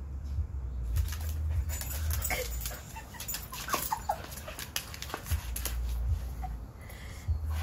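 Young Alaskan husky giving several short, high whines and yips while playing with a sandal, with scattered taps and scuffs against a low rumble.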